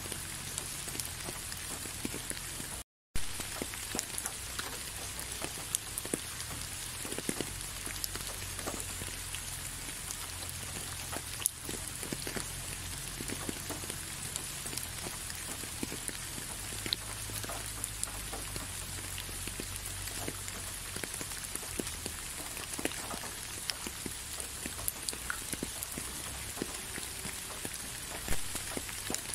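Steady rainfall: an even hiss with many separate drops ticking through it, and a low rumble beneath. The sound cuts out completely for a split second about three seconds in.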